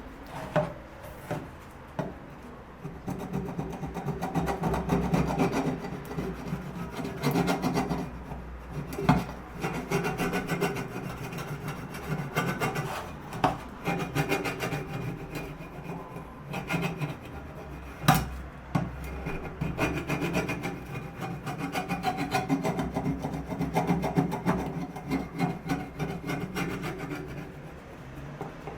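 Wood being worked by hand with an abrasive tool, such as a file or rasp, in repeated rubbing strokes, with a few sharp knocks in between, the loudest about 18 seconds in.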